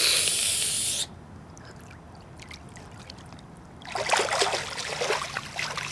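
Swimming-pool water splashing and sloshing. A loud hissing burst lasts about a second and stops suddenly, then faint drips and ticks, then choppy splashing from about four seconds in.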